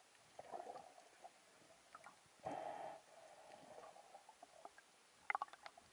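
Faint underwater sounds heard through the camera housing: a few short muffled gurgles, and a quick run of sharp clicks a little after five seconds in.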